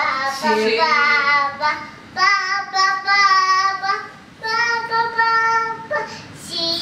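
A young girl singing alone, unaccompanied, in phrases with long held notes.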